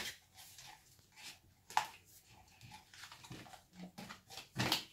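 Vizsla dog nosing at a piece of card on a parquet floor, making soft snuffles and scuffs. There is a sharp click a little under two seconds in and a louder, breathy snuffle near the end.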